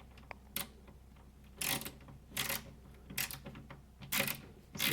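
Wera ratcheting bit holder clicking in short, irregular bursts as a screw is started by hand.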